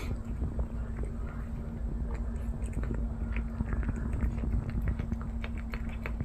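A Norwegian Forest Cat eating wet cat food: a run of quick, irregular chewing and mouth clicks.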